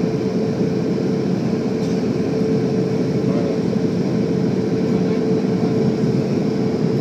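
Steady in-cabin noise of a Boeing 717 jet airliner climbing out after takeoff: the drone of its engines and rushing air, with a steady humming tone running through it.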